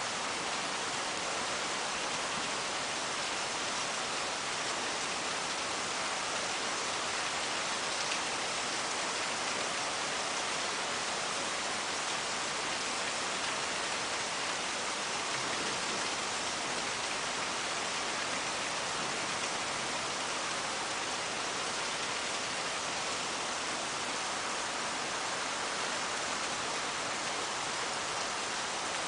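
Steady heavy rain, an even hiss of falling rain with no break or change.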